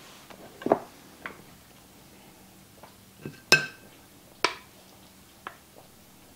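A spoon knocking and clinking against a small pot as cooked rice is scooped out onto a plate: about half a dozen light separate clinks. The loudest comes about three and a half seconds in and rings briefly.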